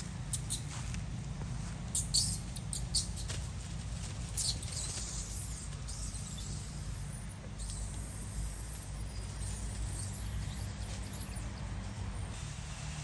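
Dry leaf litter crackling and rustling in short scattered bursts as monkeys move and scuffle over it, over a steady low rumble.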